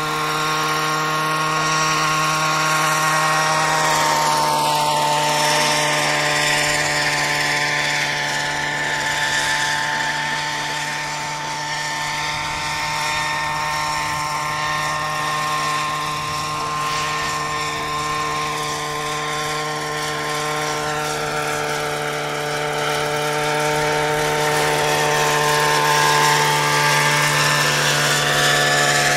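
Radio-controlled scale model Bell 47 helicopter flying, its engine and rotors making a steady high whine over a low hum. It grows louder near the end as the model comes close.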